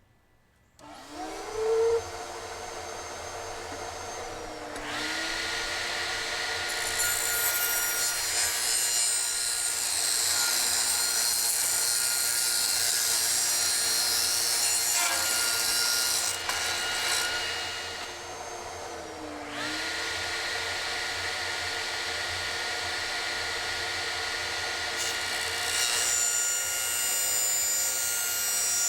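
Table saw starting up and cutting through a 2x4 board with its blade raised. The saw spins down briefly past the middle, then starts again and cuts once more near the end.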